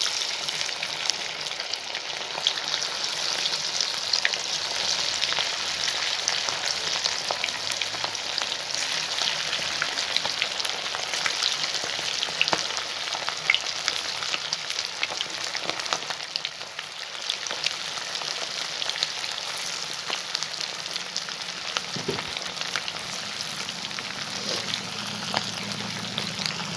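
Egg-and-spice-marinated chicken pieces deep-frying in hot oil: a steady, dense sizzle full of small crackling pops.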